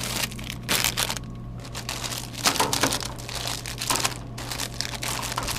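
Irregular rustling and crinkling, like plastic or cloth being handled, over a steady low hum.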